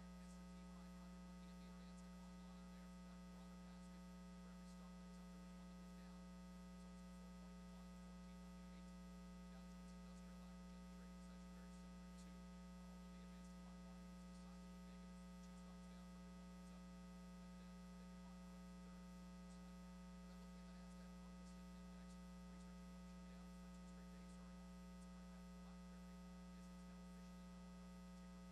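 Near silence apart from a low, steady electrical hum.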